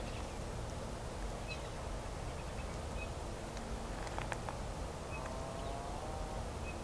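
Quiet open-air ambience: a steady low wind rumble with short, high chirps every second or two. A longer, steady-pitched call of about a second and a half sounds about five seconds in.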